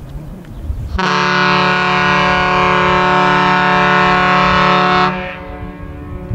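The SS Badger's ship whistle sounds one long, steady blast of about four seconds. It starts about a second in and cuts off abruptly, leaving a short echo over wind noise on the microphone.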